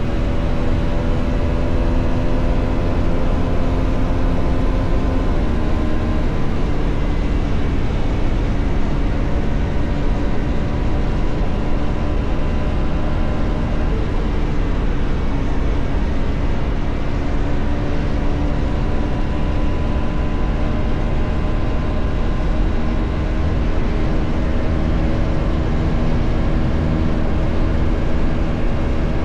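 Bajaj Pulsar NS400Z's single-cylinder engine running at a steady cruise, its pitch drifting slightly with small throttle changes and a step about six seconds in. Wind rushes heavily over the microphone underneath.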